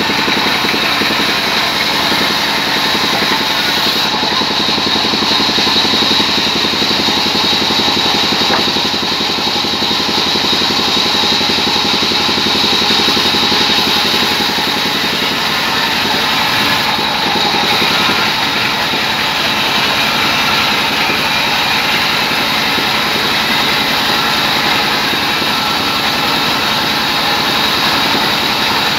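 Large vertical band saw running and ripping a rain tree plank as it is fed through, a steady, dense machine noise with a high tone running through it.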